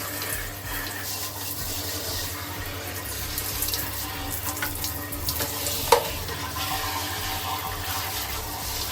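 Water running and splashing while air-conditioner parts are rinsed, with a steady low hum beneath and a sharp knock just before six seconds in.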